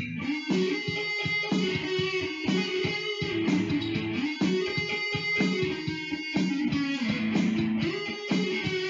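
Electric guitar playing an instrumental lead: a continuous run of short picked notes and phrases.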